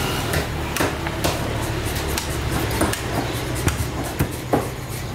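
Knife working through a mahi-mahi fillet on a wooden chopping block, giving irregular sharp clicks and taps, about eight in all, over a low steady background rumble.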